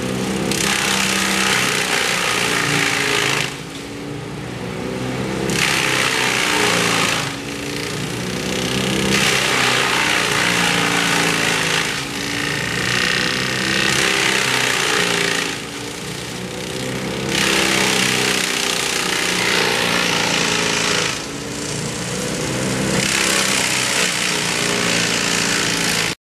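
An engine-powered tree-removal machine runs steadily, its engine note dipping and rising under load, while it cuts wood in repeated loud spells of grinding noise a few seconds long, with short easier stretches between. The sound cuts off suddenly near the end.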